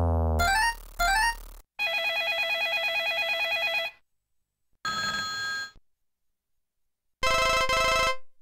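Built-in ringtones of a Motorola MS150 mobile phone, taken straight from the phone's audio output, playing one after another. First the tail of a rising run of electronic beeps, then a warbling trill ring about two seconds long, a short tone of under a second, and after a pause a rapid pulsing trill ring near the end.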